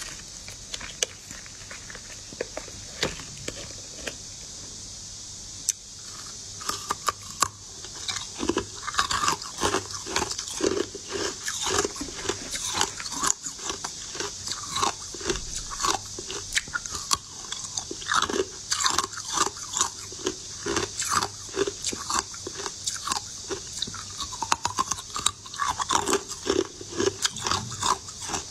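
Close-up eating sounds of hard, crunchy sugar candy being bitten and chewed, a dense run of crisp crunches and crackles that starts about six seconds in. Before that only a steady hiss.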